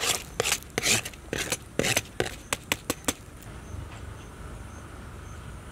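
A steel spoon scraping and tapping chopped capsicum off a plate onto a heap of chopped vegetables: a quick run of sharp scrapes and taps that stops about three seconds in.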